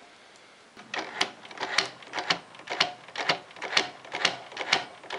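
A quick run of light metallic clicks, about four a second, starting about a second in, as the exposed clutch of a seized Honda Passport C70 engine is turned by hand.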